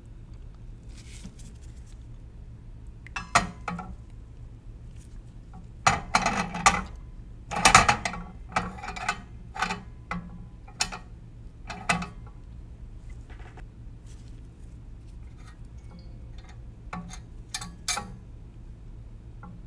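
Riders of a triple beam balance being slid by hand and clicked into the notches of its beams: a scatter of sharp clicks and knocks, busiest from about six to twelve seconds in, over a low steady hum.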